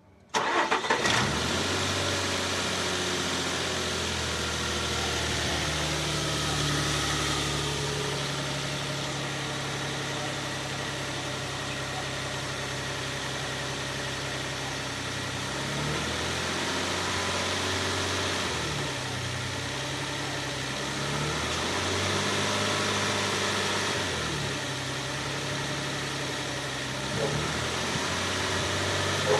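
2006 Nissan Pathfinder's V6 engine running after its worn secondary timing-chain tensioners on both banks were replaced, a repair the owner says cured the whine it made on acceleration. It runs steadily, and its speed rises and drops a few times in the second half.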